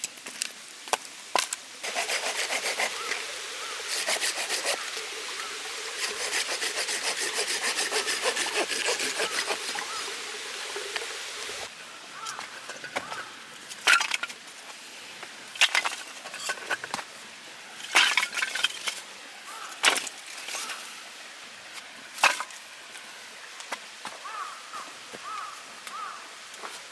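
Hand saw cutting firewood in quick rasping strokes for about the first ten seconds, then a series of separate sharp wooden knocks and cracks.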